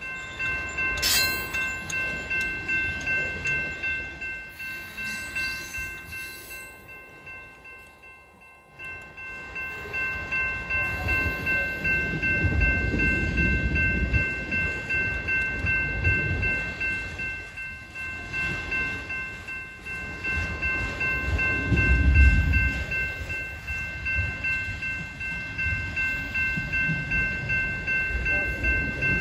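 Freight train boxcars and autorack cars rolling past: a low rumble with a rhythmic clack of wheels about twice a second, swelling and fading as cars go by. A steady high whine of several tones runs throughout.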